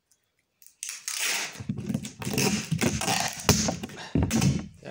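Adhesive tape being pulled off its roll in rasping pulls, starting about a second in.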